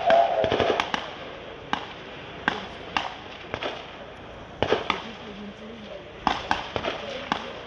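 Scattered gunshots during a military assault demonstration. Sharp cracks come a shot or two a second at irregular intervals, some in quick clusters of two or three.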